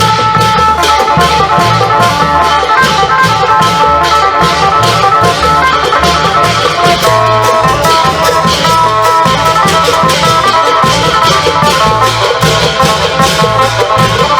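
Isan long-drum band music: a phin lute plays a melody over klong yao drums, with quick, steady percussion strokes keeping the beat.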